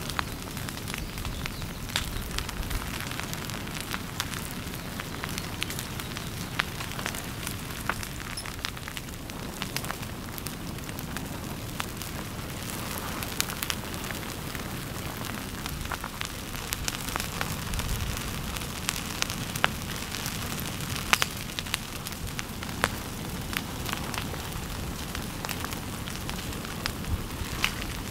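Ferns and trees crackling and snapping as they burn where lava flows into forest. The snaps are sharp and irregular, scattered over a low steady rumble.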